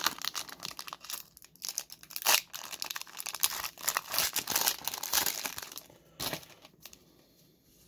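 Foil wrapper of a Pokémon booster pack being torn open and crinkled in the hands, with two sharper crackles about two and a half and six seconds in; the crinkling stops shortly before the end.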